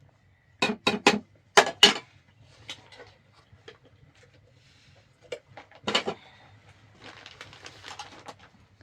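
Pots, dishes and utensils clattering as they are handled: a quick run of sharp knocks and clinks in the first two seconds, one loud knock about six seconds in, and lighter clinks between.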